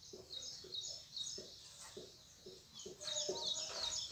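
Small birds chirping over and over in short, falling, high notes, louder about three seconds in. Beneath them are short squeaks of a marker stroking across a whiteboard.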